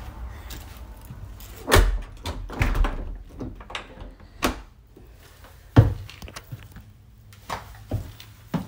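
A door and footsteps indoors: a handful of separate knocks and thumps, the sharpest about six seconds in.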